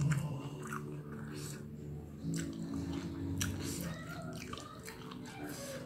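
Close-up chewing and mouth noises of someone eating curry and rice by hand, a string of small wet clicks and smacks, over a low steady hum.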